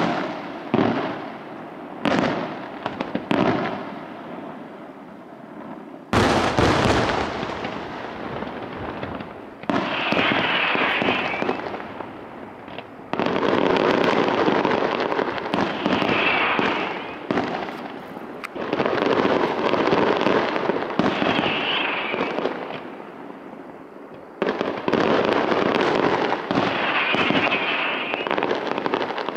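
Fireworks display: aerial shells bursting in separate sharp bangs for the first few seconds, then from about six seconds in a dense, continuous run of crackling and bangs.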